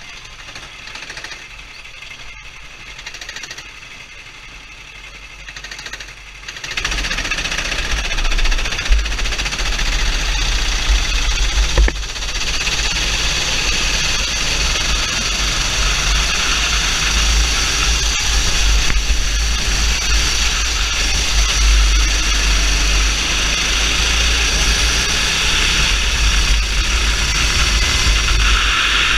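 Sodi rental kart engines running, first at a lower level, then about six seconds in the kart pulls away and loud engine noise takes over. Heavy wind buffeting on the onboard camera's microphone rumbles under the engine noise from then on.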